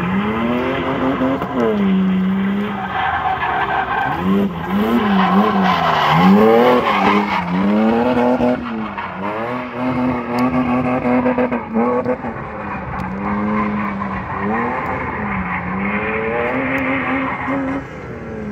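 BMW E36 with a swapped-in M54B30 3.0-litre straight-six drifting: engine revs climbing and dropping again and again as the throttle is worked, with the rear tyres squealing and skidding on the asphalt.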